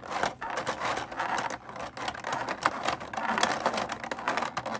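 Clear plastic blister tray crinkling and crackling as small parts are pried out of its moulded slots: a dense, continuous run of sharp clicks and crackles.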